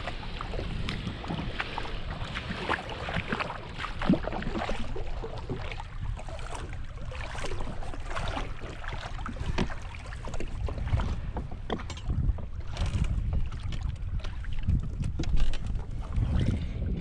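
Wind rumbling on the microphone, with water splashing and a string of knocks and clicks of gear against a NuCanoe plastic fishing kayak as a person climbs into it in shallow water. The sharpest knocks come about four seconds in and again near the end.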